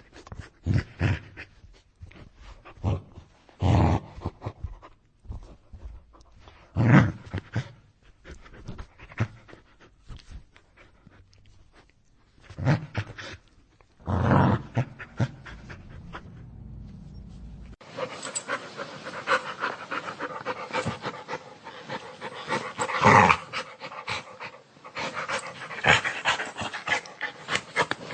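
Dog growling in short, separate bursts for about the first eighteen seconds, then an abrupt switch to a different recording of continuous, denser dog growling with louder peaks.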